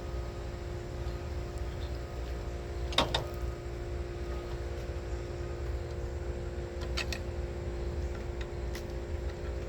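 An engine idling steadily, with a few short metallic knocks about three, seven and nine seconds in.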